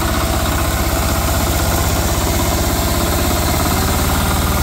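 Single-cylinder air-cooled diesel engine, a 10 hp 186FA type, running steadily at high speed while belt-driving a generator. It is throttled up so that the generator is overspinning, turning faster than the builder wants.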